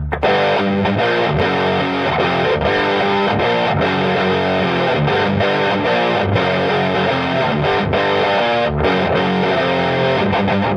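Electric guitar played through the EGO TM2's OD100 Lead overdrive setting: a heavily distorted, sustained lead tone with many changing notes and picked attacks.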